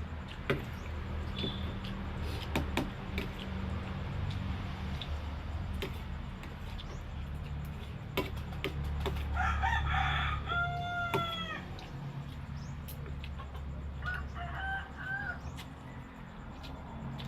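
A rooster crows once, one long call about halfway through, with a shorter call near the end. Scattered sharp clicks and a steady low hum run underneath.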